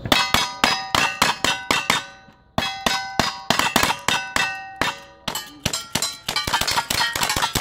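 Rapid gunfire from two shooters' revolvers and then lever-action rifles, about four shots a second, each shot followed by the ringing clang of a steel target plate being hit. The firing pauses briefly about two and a half seconds in, then resumes and grows denser near the end as the shots of the two shooters overlap.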